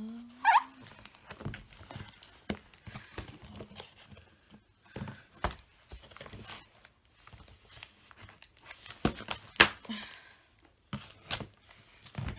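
Parcel packaging being torn open and crumpled by hand: irregular rustling and sharp crackles, the loudest about half a second in and again near the end.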